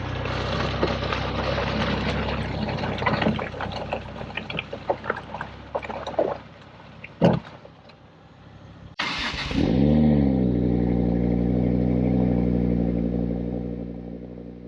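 A 2008 Volvo C30 with a clattering, knocking noise from its front end, with one sharp loud knock. After a cut, its engine note rises briefly, holds steady and fades out.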